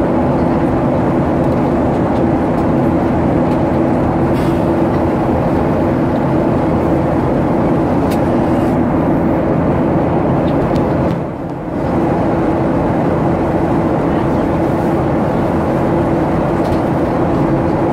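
Cabin noise inside a Boeing 737-800 climbing out after takeoff: the steady drone of its CFM56 jet engines and rushing airflow, with a low hum underneath. The sound dips briefly about eleven seconds in.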